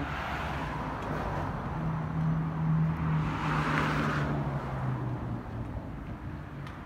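A motor vehicle driving past on the street: engine hum and road noise swell to a peak about three to four seconds in, then fade away.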